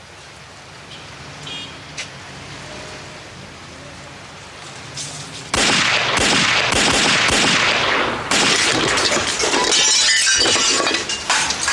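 Dramatised gunfire: after a quiet stretch, a sudden, loud volley of rapid revolver shots begins about halfway through, mixed with glass shattering and running on without a break.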